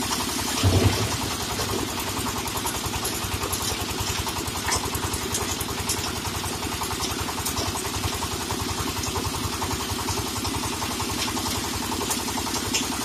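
Engine running steadily with a fast, even pulse, with a brief louder surge just under a second in.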